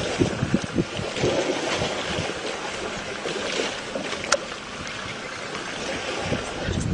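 Water sloshing and splashing as elephant calves wade in a shallow muddy pool, with wind rumbling on the microphone.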